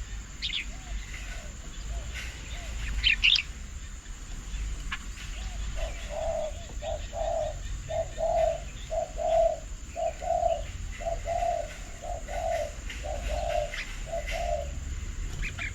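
A bird calling a long, even series of low notes, about two a second, that starts about six seconds in and stops shortly before the end. A few brief high chirps from smaller birds come through, over a steady low rumble.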